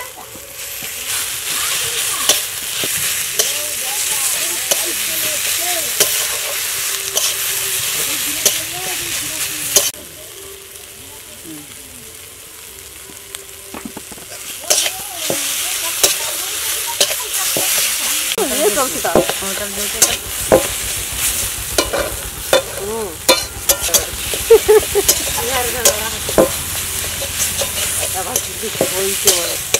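A wooden spatula stirring and scraping a thick vegetable mash around a steel wok while it sizzles in oil over the fire, with many short scrapes and knocks against the metal. The sizzle drops off for a few seconds about a third of the way in, then the stirring resumes more busily.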